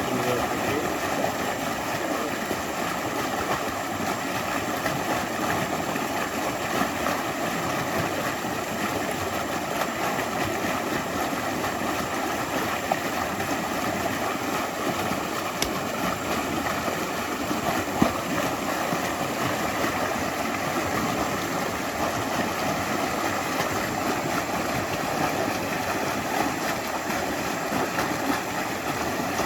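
Stream flowing steadily over stones, a continuous gurgling rush of water, with a few faint splashes or clicks.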